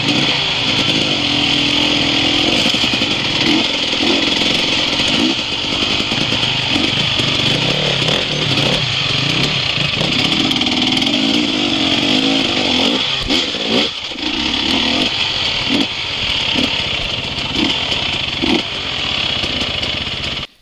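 Enduro dirt bike engine running loudly at trail pace, its revs rising and falling again and again as the throttle is worked.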